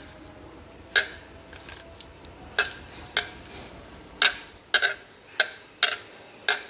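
A kitchen utensil knocking against a bowl while boiled pumpkin is mixed and mashed with spices: about eight sharp, irregular clinks.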